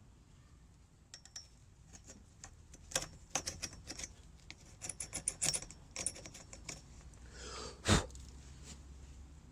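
Light metallic clicks and taps of a small hand tool working at the circlip inside a motorcycle fork tube, scattered over several seconds, then a brief scrape and one louder knock near the end.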